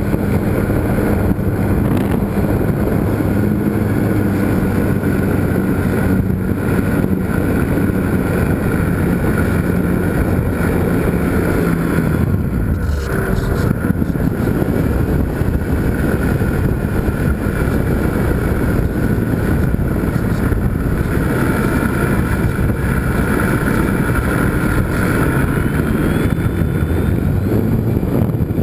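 Electric motor and propeller of a GWS Slow Stick RC airplane running steadily, heard from a camera on the airframe, with wind rushing over the microphone. The motor's pitch shifts now and then, most clearly about halfway through.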